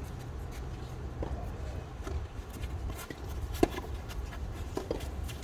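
Tennis balls struck by rackets during a doubles rally: a few short sharp pocks, the loudest about three and a half seconds in, over a steady low rumble of wind on the microphone.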